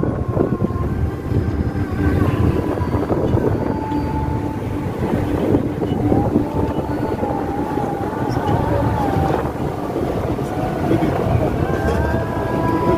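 Cabin noise of a moving Toyota car at highway speed: steady road and engine rumble with some wind noise. A faint wavering tone comes and goes over it.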